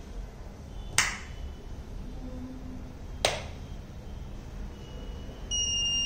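Two sharp clicks about two seconds apart, then near the end the device's buzzer begins a high, steady electronic beep.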